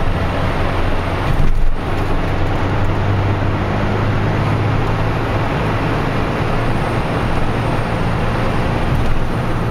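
Engine and road noise inside a BMW Z3 roadster's cabin at motorway speed: a steady low engine hum under an even rush of tyre and wind noise, with a brief louder swell about a second and a half in.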